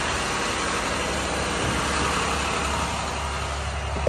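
Diesel engine of a 2009 International 4400 bucket truck idling steadily.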